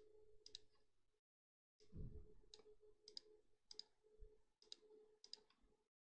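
Faint computer mouse clicks: about half a dozen short, separate clicks, spread irregularly, as a window is dragged, resized and maximised.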